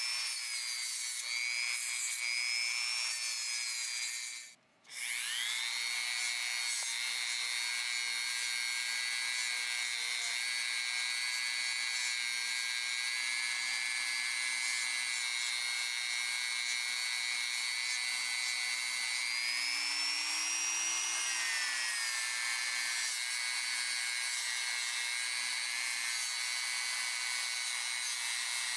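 Small high-speed rotary tool whining steadily as an abrasive or bristle wheel scrubs the metal of a pipe wrench, with a rough rubbing hiss over the motor tone. It cuts out briefly about five seconds in and spins back up, and its pitch rises for a moment later on as the load eases.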